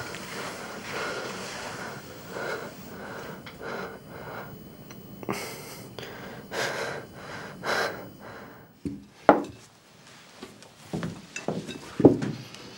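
A man breathing hard, panting in heavy breaths about once a second. In the last few seconds, cutlery and dishes clink and knock on a table, the sharpest knocks the loudest sounds of all.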